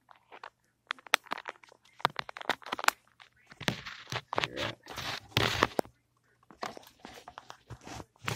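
Handling noise: a rapid, irregular run of clicks, knocks, scrapes and crackles, busiest and loudest in the middle, over a faint steady low hum.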